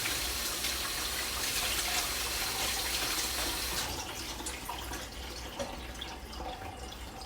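Kitchen tap running into a sink, shut off about four seconds in, followed by a few drips.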